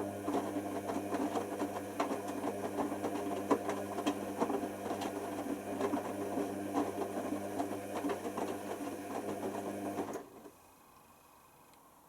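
Hoover Nextra HNWL7146 washer dryer running: a steady motor hum with light irregular rattling, which cuts off suddenly about ten seconds in.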